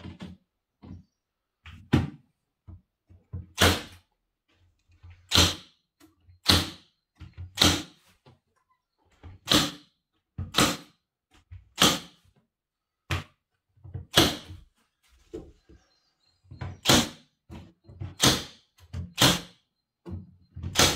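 Milwaukee M18 FUEL cordless narrow crown stapler firing staples into the wooden top of a cabinet, a sharp shot about once a second in runs, about a dozen in all, with softer knocks between shots.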